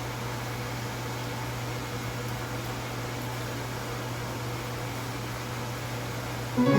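Steady mechanical whir with a constant low hum and hiss, like an appliance fan running. Music comes in just before the end.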